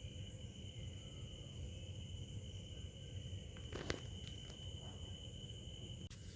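Quiet background hum with a steady high-pitched whine, and a single light click about four seconds in.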